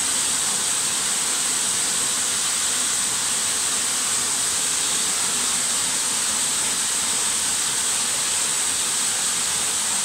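Small waterfall pouring over rock ledges: a steady, unbroken rush of falling water.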